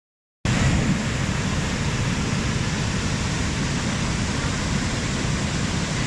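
Steady rushing of a large waterfall in spate: white water pouring over wide rock ledges, a dense even noise heaviest in the low end, starting about half a second in.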